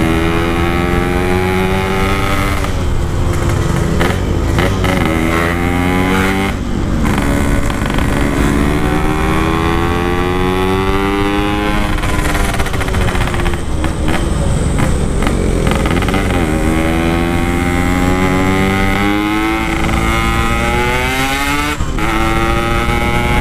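Two-stroke motorcycle engine, a Yamaha RX-King 135cc on a Packing Power aftermarket exhaust, running hard under way. Its note climbs and then drops back several times as the rider accelerates and shifts through the gears.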